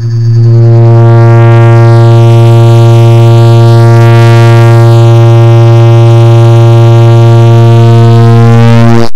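Clock ticks sped up so far that they merge into a loud, steady buzzing drone: a low hum with many overtones and a wavering shimmer higher up. It swells in over about the first second, then holds steady.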